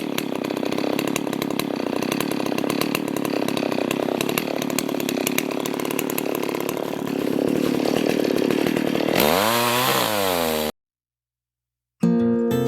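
Chainsaw cutting through wood at steady full throttle; about nine seconds in its engine pitch climbs and then falls away as it comes out of the cut and the throttle is let off, and the sound stops abruptly. Acoustic guitar music starts near the end.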